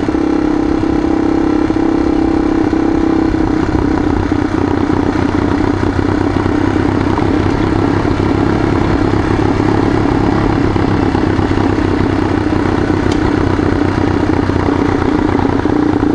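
Yamaha XT dual-sport motorcycle engine running at a steady pace while riding on loose gravel, with the tyres crunching over the stones.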